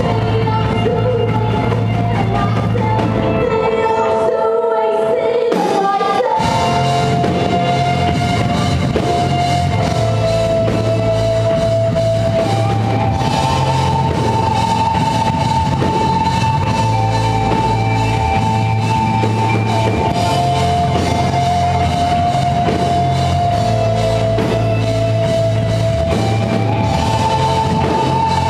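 Live rock band playing: a woman singing long held notes over bass guitar, electric guitar and drum kit. The bass and drums drop out for a moment about four seconds in, then come back in.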